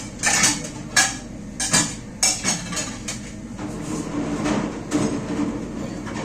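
Plates and dishes being washed by hand, knocking against each other with four or five sharp clatters in the first half, then a steadier run of scraping and rinsing noise.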